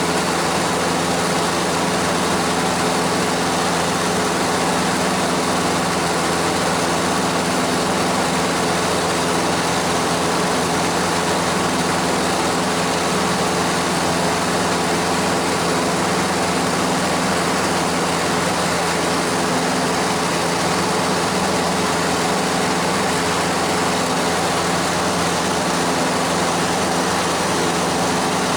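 Light propeller aircraft's engine and propeller running steadily at cruise, a constant drone with several fixed tones, heard from inside the cockpit.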